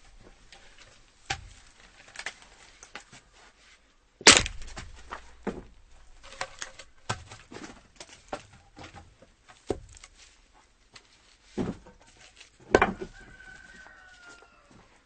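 An axe chopping firewood: about six hard chops at irregular intervals, the loudest about four seconds in, with small knocks and clatter of split wood between them. Near the end a rooster crows in the background.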